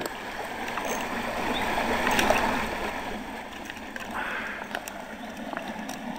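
Shallow creek water running over stones, a steady rush that swells for a couple of seconds, with a few light clicks scattered through it.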